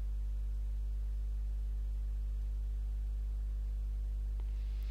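Steady low electrical mains hum on the recording, with a faint single click near the end.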